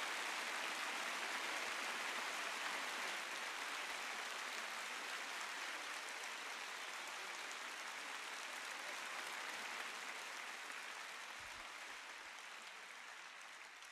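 Large arena crowd applauding, slowly dying away.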